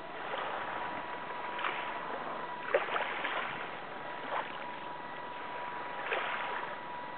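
Water lapping and splashing against a small boat's hull in irregular washes over a steady hiss, with a faint high steady tone running underneath.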